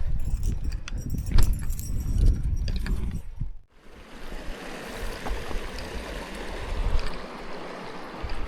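Low rumbling with scattered clicks, then, after a cut about three and a half seconds in, the steady rush of shallow river water flowing over stones.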